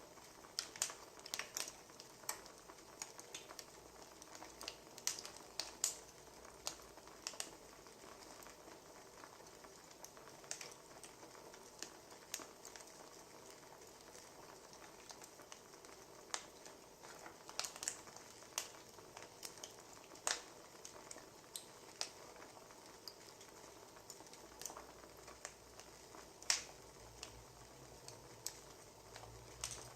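Firewood crackling as it burns: irregular sharp pops and snaps, a few every second, over a soft steady hiss.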